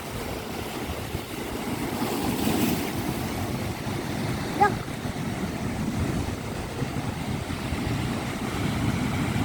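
Sea waves washing in a steady rush, swelling a couple of seconds in, with wind buffeting the microphone. A brief pitched squeak cuts through about halfway.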